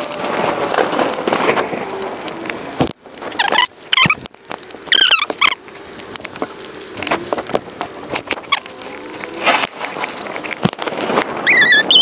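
Steady rain hiss with a few sharp clicks and knocks as a red plastic motorcycle part is handled and screwed back on. High wavering chirps come about four to five seconds in and again near the end.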